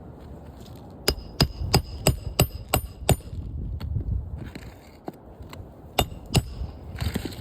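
Hammer driving nails to fasten a replacement roof shingle: a quick run of seven strikes, about three a second, each with a metallic ring, then two more strikes a few seconds later.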